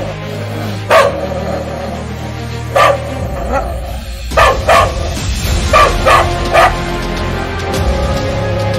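A dog barking, about seven short barks at irregular spacing, over steady background music.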